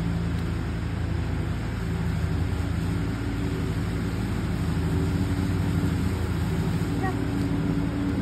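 Steady low mechanical hum holding several level tones, unbroken throughout.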